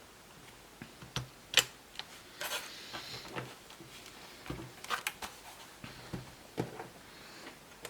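Scattered sharp clicks and light taps, with a short scrape, as a 4 GB PC3 laptop memory module is fitted and the laptop is handled.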